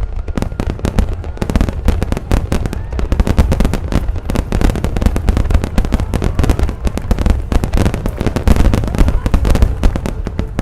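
Star mine fireworks barrage: aerial shells bursting in rapid succession, many overlapping booms a second with a heavy low end.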